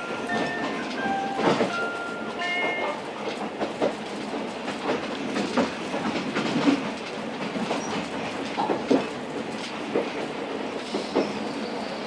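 Interior of a locomotive-hauled passenger coach running on jointed track: a steady rumble with irregular clacks from the rail joints. In the first three seconds there are several short high-pitched tones at changing pitches.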